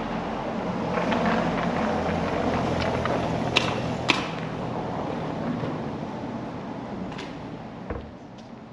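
Town street ambience: a steady rumble of traffic with a low engine hum, a few sharp clicks and knocks around the middle, fading down near the end.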